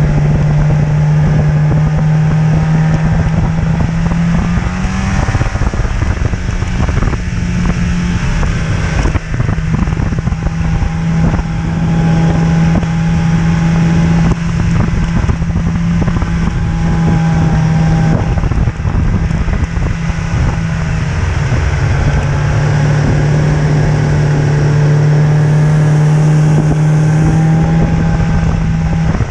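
Snowmobile engine running under the rider at a steady cruising speed, a loud even engine note that shifts slightly in pitch a few times.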